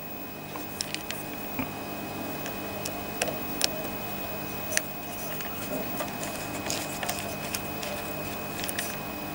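Small screwdriver turning a cut-down BA-thread screw into the line terminal block of an electricity meter: scattered light metallic clicks and scrapes, over a faint steady hum.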